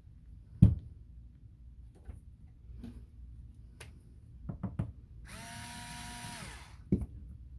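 A small cordless screwdriver runs with a steady whine for about a second and a half on a screw of a Penn 113 fishing reel, dropping in pitch as it stops. Sharp knocks and light clicks of the reel and tool being handled come before it, the loudest knock about half a second in, and another knock just after the screwdriver stops.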